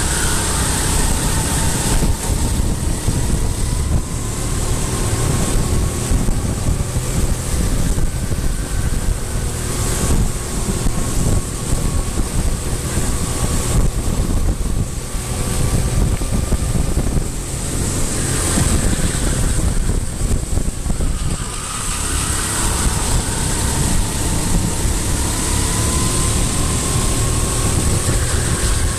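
Vehicle engine running steadily at speed under heavy wind noise on the microphone, its pitch drifting gently up and down.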